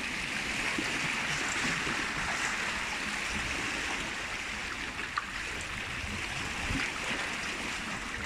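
Seawater washing and lapping among the concrete tetrapods of a breakwater: a steady wash with a few small splashes.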